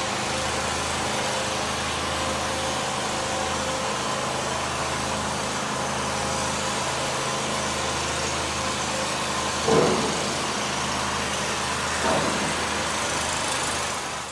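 An engine running steadily at idle, a pulsing low hum with a steady higher whine over it. Two brief louder sounds break in about ten and twelve seconds in, and the sound fades out at the end.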